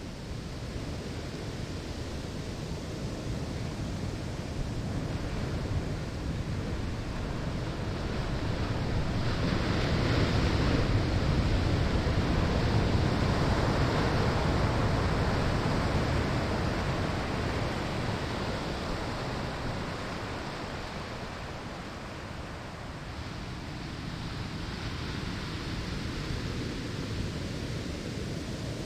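Surf on a sandy beach: a wave builds, breaks and washes up the shore, at its loudest about ten seconds in, then draws back and the next one starts to build.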